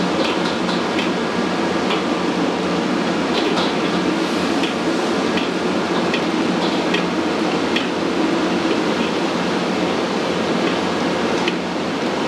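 Commercial wok burner running on a high flame, a loud steady rushing noise, with a metal ladle clinking and scraping against the steel wok every second or so as it stirs crabs in sauce.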